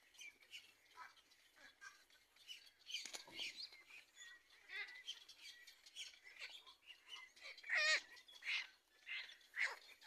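Black-crowned night heron chick begging with a run of short, high squeaky calls, with a louder rapid chattering call about eight seconds in and another sharp call near the end.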